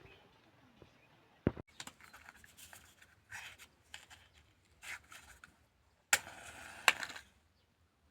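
Close rustling and scraping handling sounds: a sharp knock about a second and a half in, scattered scrapes, then a louder stretch of rustling near the end.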